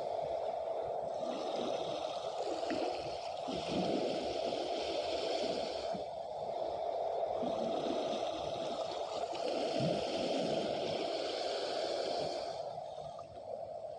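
Sea water washing at the shoreline, a continuous rushing hiss that swells and eases every few seconds as the waves come in.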